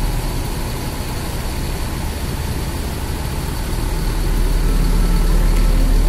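Diesel engine of an intercity coach running with a heavy low rumble, growing louder over the last couple of seconds as the coach moves past.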